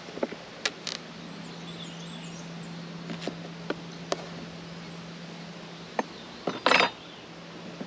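Honeybee colony in an open hive humming steadily, with scattered sharp clicks and knocks and a short louder scraping rustle near the end.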